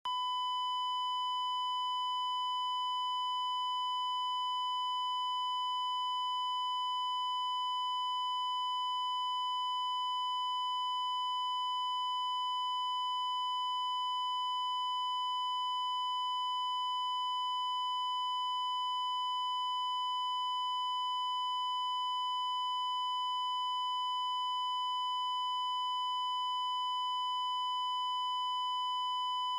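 Heart monitor flatline alarm: one continuous, unbroken high-pitched beep tone at an even level. It is the signal that the monitor detects no heartbeat.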